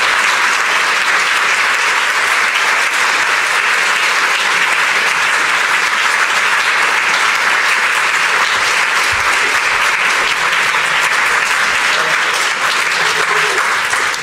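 A large seated audience applauding steadily, a dense even clapping.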